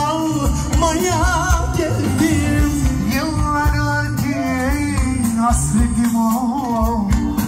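Live band music over a PA: an ornamented, wavering lead melody over bass and a steady dance beat.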